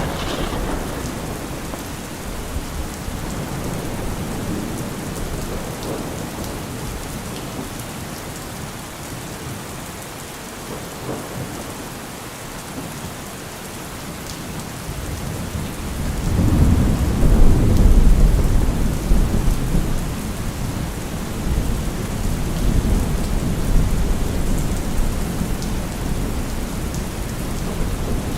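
Steady rain with rolling thunder: a low rumble builds a little past halfway, peaks a couple of seconds later and rolls on in weaker rumbles to the end.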